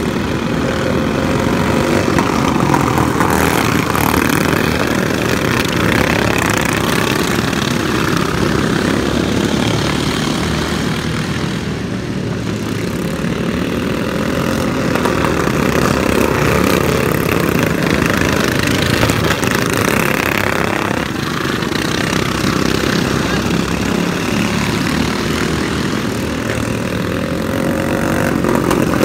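Several racing lawn mower engines running hard around a dirt track. The sound swells and fades with pitch glides as the mowers pass.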